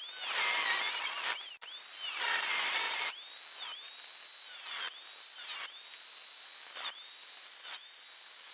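Angle grinder with a cutoff disc cutting cured fiberglass: a steady high motor whine that dips in pitch each time the disc bites, with harsh rasping cutting noise, heaviest in the first three seconds.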